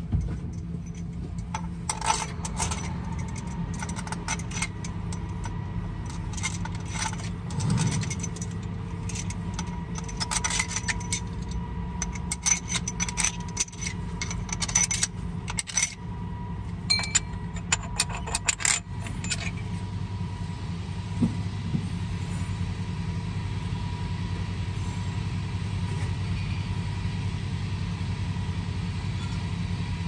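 Heavy diesel engine idling steadily. Bursts of light metallic clinks and taps from hands and tools working around the engine's valvetrain run through the first twenty seconds or so.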